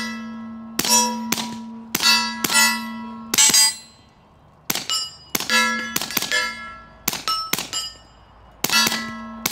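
Suppressed Smith & Wesson FPC 9mm carbine, fitted with a Griffin Armament Revolution 45 silencer, firing a string of shots at steel targets. The shots come in quick bursts with short pauses, and each hit leaves a steel plate ringing and slowly fading.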